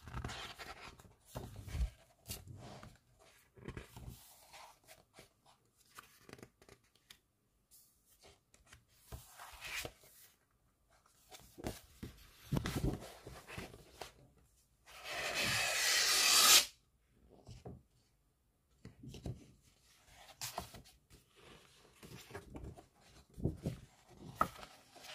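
Pages of a large photobook being turned and handled: soft paper rustles and light taps, with one louder sweeping rustle of about a second and a half around the middle that cuts off suddenly.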